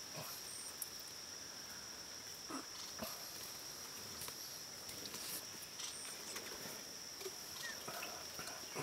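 A steady high-pitched insect drone, with a few faint ticks and rustles scattered over it.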